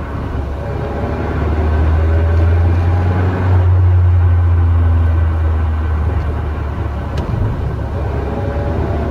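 Mazda NC Roadster on the move: a steady low engine and road drone with a faint whine that rises slowly in pitch, swelling about a third of the way in and easing off after the middle. The whine is the noise of its 6-speed manual gearbox, whose gears are damaged.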